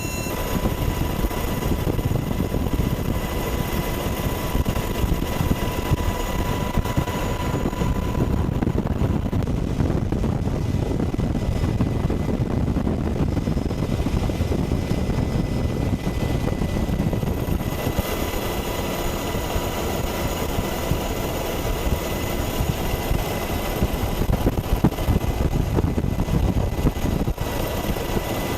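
Several OH-58D Kiowa Warrior helicopters running, a dense fast rotor chop under a steady high turbine whine. The whine fades for a stretch in the middle and comes back about two-thirds of the way through.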